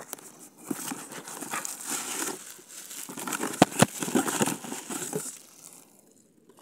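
Cardboard box flaps and plastic packing wrap crinkling and rustling as they are handled, with two sharp knocks about three and a half seconds in; the rustling dies away near the end.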